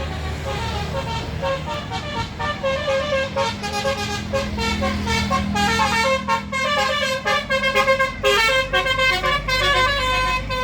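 Bus basuri horn, the multi-tone telolet horn, playing a rapid tune of short stepped notes over the bus's engine running. The notes come thicker and louder through the second half.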